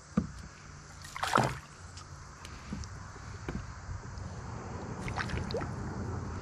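A hooked smallmouth bass splashing and thrashing at the surface beside a kayak as it is landed by hand, with one louder splash about a second and a half in. Scattered light clicks and knocks run under a steady low rumble.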